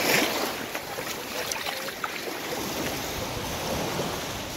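Wind blowing across the microphone, mixed with small surf washing onto a sandy beach.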